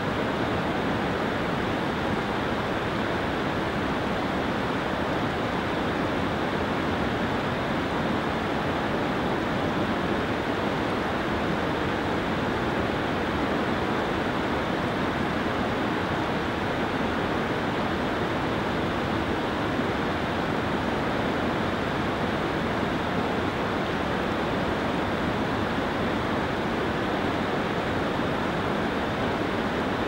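Whitewater rushing steadily over granite boulders in a cascading mountain creek running high with snowmelt.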